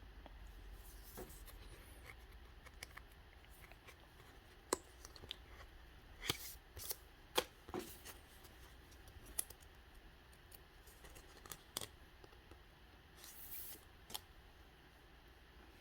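Pokémon trading cards being handled: scattered light clicks and short rustles as cards are sorted and flicked through.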